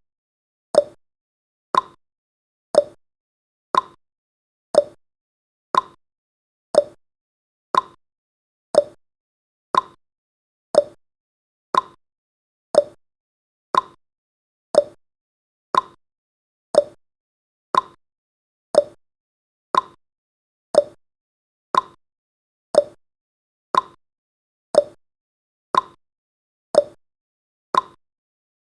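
Countdown timer's clock-tick sound effect: a short, sharp tick once every second, each one dying away quickly, in a steady unbroken rhythm.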